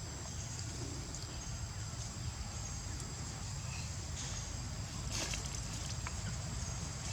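Steady high-pitched drone of insects, with a constant low rumble underneath and a couple of brief hissing flares about four and five seconds in.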